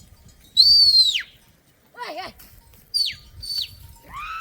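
A shepherd's loud whistles to the flock: one long high whistle that falls sharply in pitch, then two short falling whistles, with a short wavering bleat from the flock in between and another steady call starting near the end.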